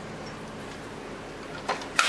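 A low, steady hum, then two sharp clicks near the end, a fraction of a second apart, as a small steel hand tool is put down against a plastic tool case.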